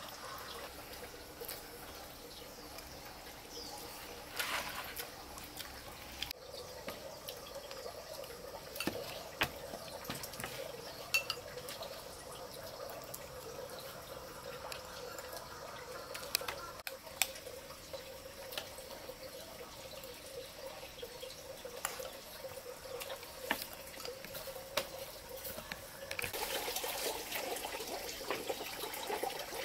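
Chopsticks clicking and scraping against ceramic bowls during a meal, a few sharp ticks at a time over a faint steady background. A louder rushing hiss comes in near the end.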